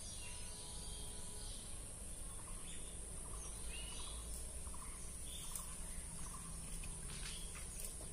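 Rural outdoor ambience: birds chirping now and then over a steady high-pitched insect drone, with a low steady rumble underneath.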